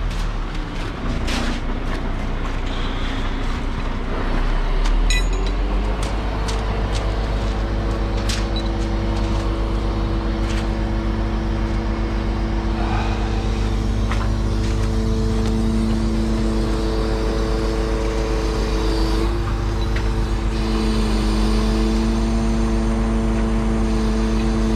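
Crane truck's diesel engine running, with a few sharp knocks in the first seconds. It speeds up about four seconds in and then holds a steady, higher hum.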